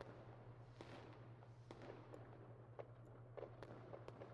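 Faint fireworks ambiance: scattered small crackles and pops over a low steady hum, close to silence.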